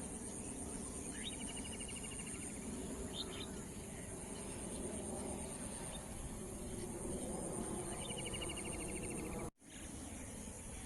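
Evening outdoor ambience: insects chirping steadily at a high pitch over a low background rumble, with a bird giving a quick rapid trill twice, about a second in and again near the end, and a couple of short rising call notes in between. The sound cuts out for an instant shortly before the end.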